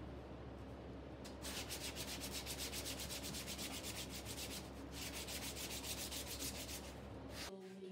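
Hand sanding a glued-up hardwood strip board: rapid back-and-forth scratching strokes, several a second, starting about a second in, with a brief pause midway, then stopping abruptly.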